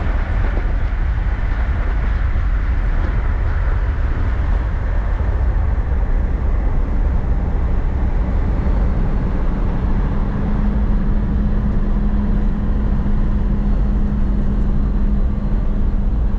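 Moving vehicle's steady road and wind noise at speed, heavy and rumbling at the low end, with a steady hum joining about ten seconds in.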